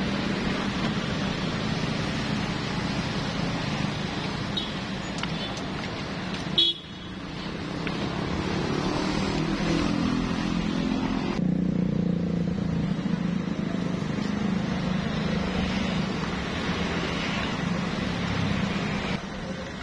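Steady engine drone of nearby road traffic, with motor vehicles running close by and a sharp click about six and a half seconds in.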